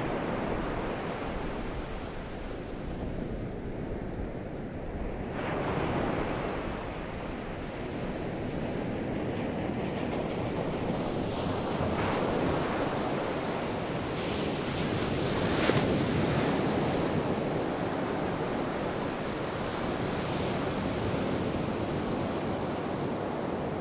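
Ocean surf: waves breaking and washing up a sandy beach in a continuous rush. The rush swells as several waves break in turn, the biggest a little past the middle.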